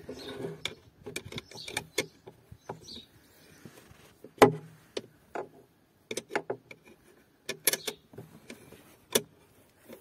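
Metal wrench clicking and knocking against the battery terminal clamp as the 10 mm positive terminal nut is loosened, in irregular sharp clinks, loudest about halfway through and in a quick cluster near the end.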